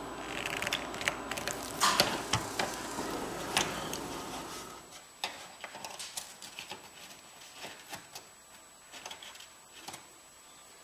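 A hand riveter setting flush aluminum pop rivets into an aluminum manifold, giving several sharp snaps and clicks in the first four seconds over a low steady hiss that drops away about five seconds in. After that come quieter scattered ticks and taps as rivets and aluminum parts are handled.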